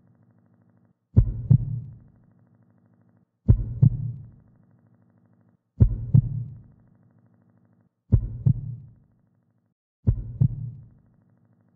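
Looped heartbeat sound effect: a low double thump, lub-dub, repeating about every two and a third seconds, five times, each pair fading into a short low rumble.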